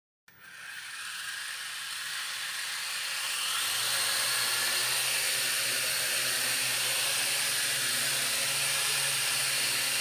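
Toy quadcopter's motors and propellers whirring, spinning up over the first few seconds and then holding a steady full-throttle whine. The drone is straining at full power against the toy dinosaurs tied to it and cannot lift off.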